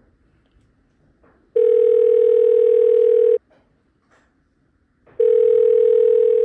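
Telephone ringback tone heard through the phone: two long, steady beeps, each nearly two seconds, as the outgoing call rings on the other end without being answered.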